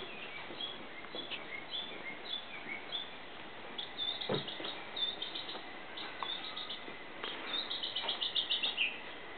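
Small birds chirping, with short calls scattered throughout and a quick trill of about eight rapidly repeated notes near the end that drops in pitch. A single soft knock about four seconds in.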